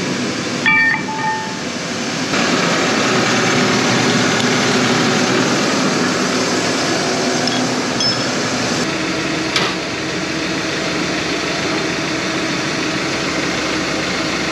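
Farm tractor's diesel engine running steadily, getting louder about two seconds in, with a short ringing metal clink about a second in.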